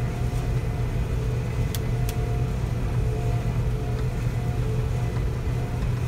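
Combine harvester running steadily while cutting soybeans, a low drone of engine and threshing machinery heard from inside the cab. Two brief faint clicks about two seconds in.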